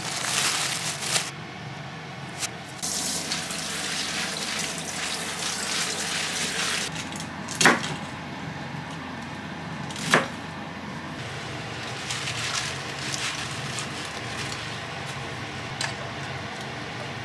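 Kitchen prep sounds: plastic bags of spinach crinkling at first, then a kitchen knife cutting spinach on a cutting board, with two sharp knocks about two and a half seconds apart. A steady rush of running water goes on underneath.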